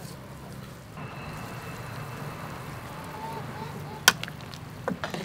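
Soup boiling in a metal pot with a steady low rumble, then a metal ladle clinks sharply against the pot about four seconds in, followed by two lighter clinks near the end.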